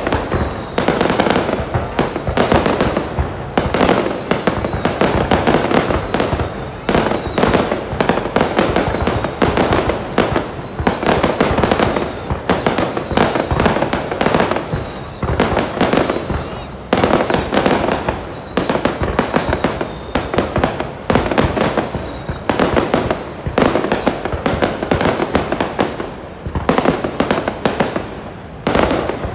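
Aerial fireworks display bursting in a dense, unbroken run of bangs, many per second.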